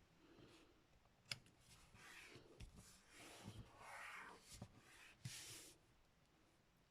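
Faint rustling and handling of paper and card stock, with a sharp click about a second in and soft scuffs and rustles through the middle.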